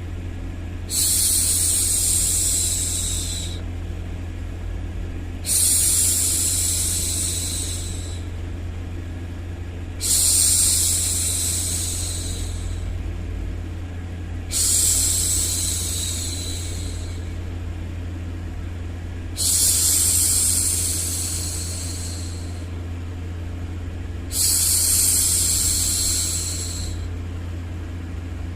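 A woman's voice going "shhh" to hush a baby: six long shushes about every four and a half seconds, each starting suddenly and fading away over two to three seconds, over a steady low hum.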